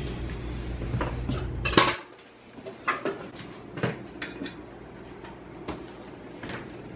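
Knife cutting a crispy thin-crust pepperoni pizza, with irregular sharp clicks and scrapes as the blade strikes the surface beneath; the loudest knock comes a little under two seconds in.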